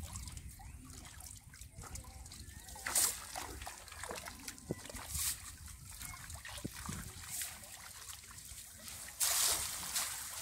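Water trickling and sloshing in a bamboo-framed lift net in shallow water, with short splashes a few times and a longer, louder splash near the end.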